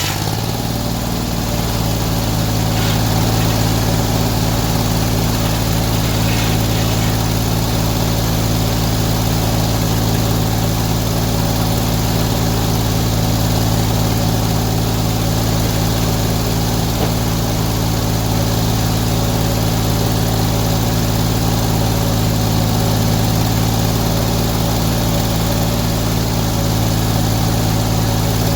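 Portable sawmill's engine running steadily at a constant speed.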